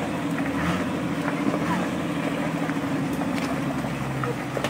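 A jeepney-style vehicle's engine running steadily as it crawls along a muddy dirt track, its pitch easing down slightly.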